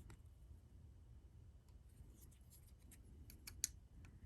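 Near silence with a few faint clicks from handling Boker Kwaiken Air Mini folding pocket knives, the clearest about three and a half seconds in.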